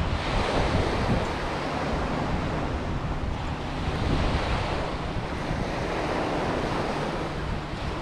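Small waves breaking and washing up a shingle beach, a steady surf noise that swells and eases, with wind buffeting the microphone.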